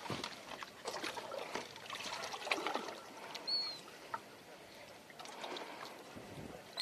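Faint trickling water, with small clicks from handling and two short, high, falling chirps a few seconds apart.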